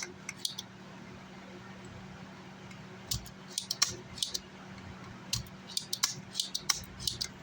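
Irregular sharp metallic clicks and taps from hand tools working on an amplifier's power-supply MOSFETs during desoldering, coming in small clusters over a steady low hum.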